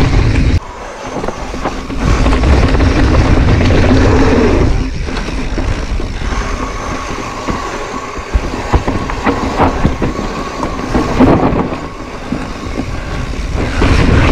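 Mountain bike rolling over rough dirt trail, recorded on a GoPro riding with it: a loud, continuous rumble from the tyres and frame, with frequent sharp knocks and rattles over bumps. The rumble drops suddenly about half a second in and comes back at about two seconds.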